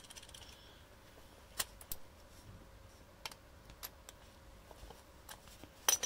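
A ratchet with a 10mm socket and extension bar being worked on a bolt inside a car door, giving a few scattered, sharp metallic clicks and taps.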